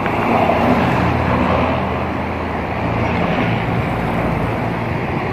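Diesel locomotive of a passenger train passing close by. Its engine hum is strongest for the first few seconds, then the coaches keep rumbling steadily along the rails.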